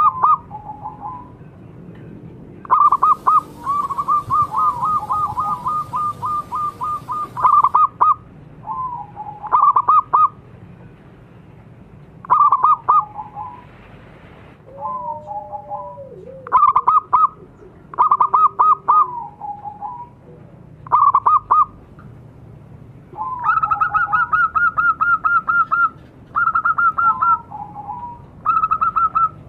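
Several zebra doves (perkutut) cooing in a chorus: phrases of rapid, staccato notes repeated with short pauses, some overlapping, with two longer fast runs of notes.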